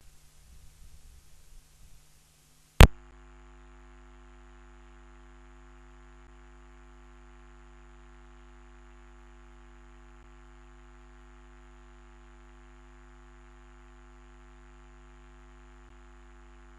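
A faint low rumble, then one sharp loud pop about three seconds in, followed by a steady electrical hum made of several constant tones.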